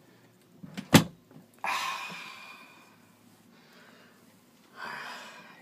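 A thin RV bathroom door bangs shut once about a second in, then a bath mat is dragged and pushed along the floor against the gap under the door in two swishes, the first fading over a second or so.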